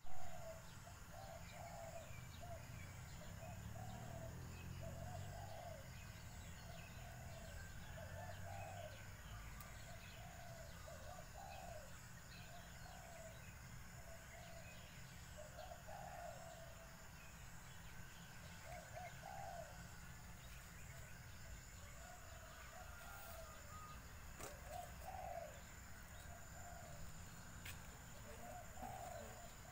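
Birds calling outdoors: a soft, low call repeated every second or two, with faint chirps from other birds.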